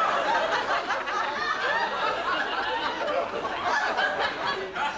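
Studio audience laughing, many voices together, dying away near the end.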